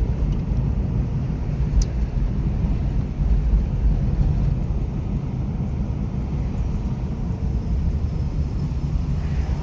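Steady low rumble of engine and tyre noise heard inside the cabin of a car driving along.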